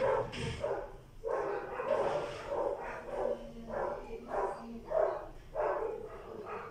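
A dog barking in a run of short barks, roughly two a second, with a slightly longer call near the start.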